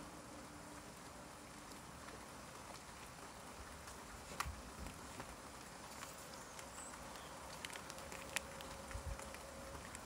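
Steady light rain falling on a garden, a soft even hiss with scattered sharper drips tapping nearby, the loudest about four seconds in and again past eight seconds.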